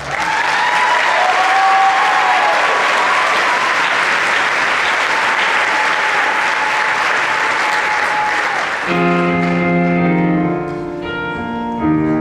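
Audience applauding, with some cheering. About nine seconds in, the applause gives way to a guitar playing steady chords.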